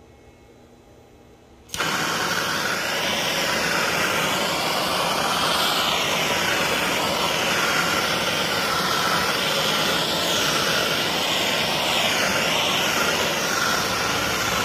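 Handheld gas torch flame roaring steadily as it heats the dented steel fender, starting suddenly about two seconds in, its tone shifting as the flame is moved over the panel.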